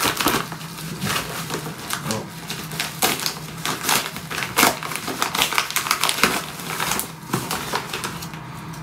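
Yellow mailing bag being pulled and torn open by hand: irregular crackling and crinkling of the packaging with short sharp rips.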